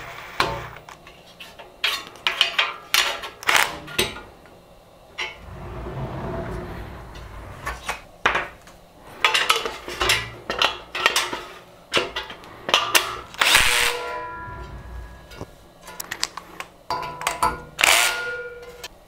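Aluminium frame extrusions and metal parts being handled and fastened: repeated sharp metallic clicks and knocks, some ringing briefly after the strike. A cordless drill/driver runs for a couple of seconds about six seconds in.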